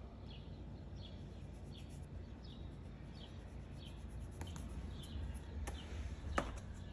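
Faint, short high chirps repeating about every 0.7 s, a small bird chirping, over a low steady hum. In the last two seconds the chirps give way to a few light clicks and a sharper knock as a plastic tub is handled.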